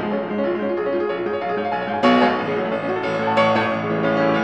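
Background music led by piano, with struck notes and chords ringing over a sustained backing; a fresh chord lands about two seconds in.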